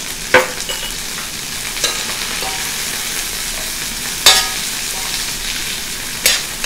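Chicken pieces, onion, ginger and garlic sizzling steadily in oil in a stainless steel wok while being stir-fried. A metal ladle scrapes and clanks against the wok four times, the loudest clank a little past the middle ringing briefly.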